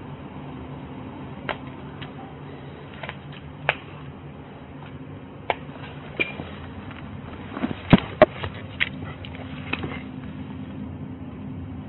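Body-camera audio of a search through a basement: a steady low hum under scattered knocks, clicks and rustles as stored objects are moved and looked behind. The loudest is a pair of knocks about eight seconds in.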